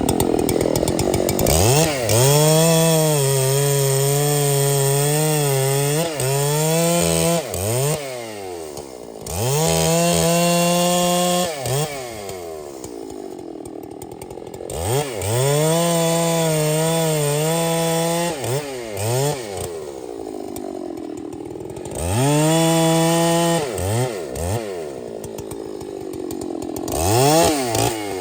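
Large two-stroke chainsaw cutting wood, revved to full throttle and held for a few seconds at a time, then dropping back toward idle between cuts, about five times.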